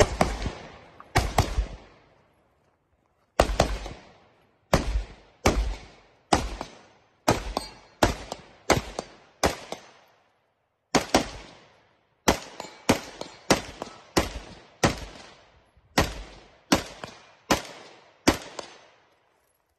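Rifle gunfire: a string of about twenty single shots at a steady pace, roughly one every half second to one second, with short pauses about 2 and 10 seconds in.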